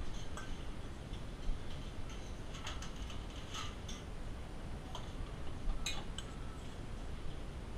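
Scattered light clinks and taps of a metal spoon and tweezers against a stainless steel bowl and a china plate, over steady low background noise.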